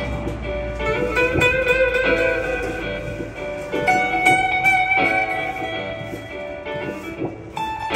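Acoustic guitar played solo with a pick: an improvised line of single picked notes, some held and wavering slightly.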